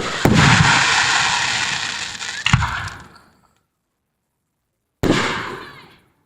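Consumer fireworks going off: a sudden sustained hiss with sharp cracks, a loud bang about two and a half seconds in, then a second short burst about five seconds in that quickly fades.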